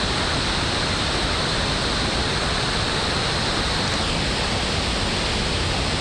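Broad, low waterfall pouring in full flow over rock ledges across a river: a steady, even rush of water.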